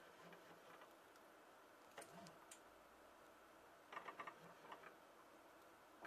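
Near silence: faint room tone with a few short, quiet clicks, a quick cluster of them about two-thirds of the way through.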